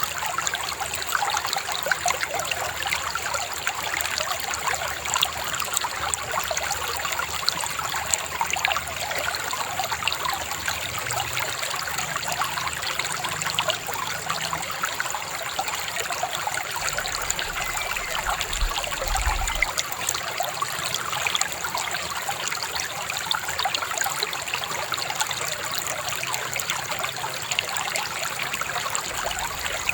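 River babbling and trickling in a steady, even rush of water.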